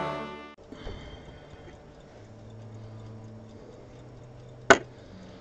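The tail of a brass music intro cuts off in the first half-second. After it come small handling ticks from hands working a small object on a wooden table, with one sharp click a little past the middle, over a steady low hum.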